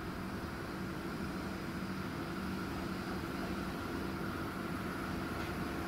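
Distant train approaching along the line: a steady low rumble and hum that slowly grows louder.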